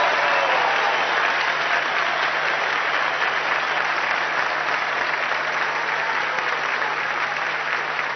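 Large audience applauding steadily, the clapping easing off slightly toward the end.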